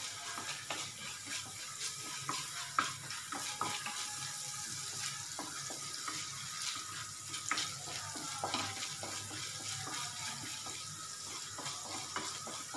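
Chopped garlic sizzling in hot butter and oil in a non-stick pan, a steady hiss with many small crackles, as a wooden spatula stirs it around the pan.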